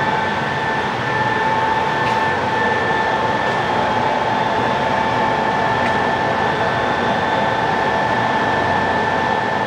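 Acer Dynamic 29 x 60 engine lathe running with its spindle at the lowest speed, 25 RPM, driven by its 15 HP main motor: a steady hum with an even, high gear whine.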